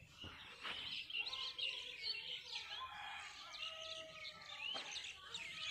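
Birds chirping in the background: many short, quick chirps and calls that rise and fall in pitch, overlapping one another.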